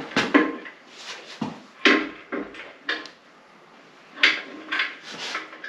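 Irregular metal clunks and knocks, about eight in all, as a Tremec TKX transmission is manhandled up against the engine's bell housing to line it up. Some of the knocks ring briefly.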